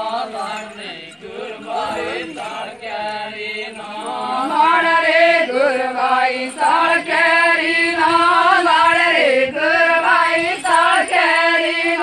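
A group of women singing an Adivasi Gor folk song together in a chant-like unison, with long held, wavering notes. The singing grows louder about four seconds in.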